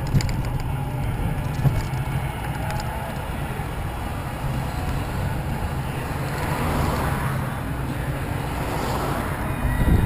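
Cars passing in the next lane, swelling twice in the second half, over a steady low rumble of wind and road noise on a moving, low-mounted camera. A few light ticks come near the start.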